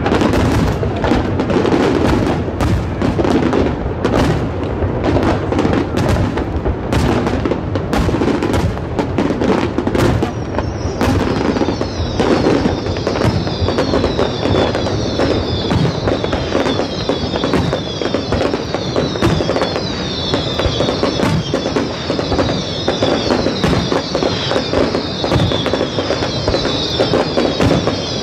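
Aerial fireworks display: a rapid, overlapping barrage of shell bursts and bangs. About eleven seconds in, a dense stream of high, falling whistle-like tones joins the bangs and runs on over them.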